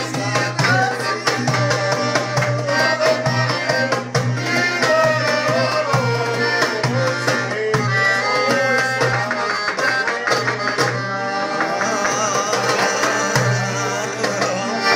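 Band music driven by a hand drum beat, with a wavering lead melody over a steady low bass.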